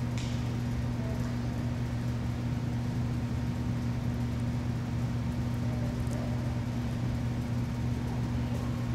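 Steady low hum of the hall's background machinery, with two fixed tones and no change in level.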